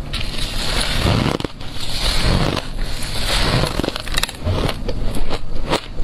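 Crunching bites into soft, snow-like white ice held close to the microphone, with chewing between them: a dense, crackling crunch about once a second.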